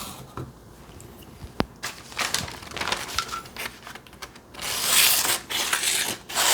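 Freshly sharpened kitchen knife slicing through thin catalog paper: a string of short rustling cuts, then longer, louder slicing and paper crinkling in the last two seconds, with a single sharp tick about a second and a half in. The clean cuts show the edge is now sharp.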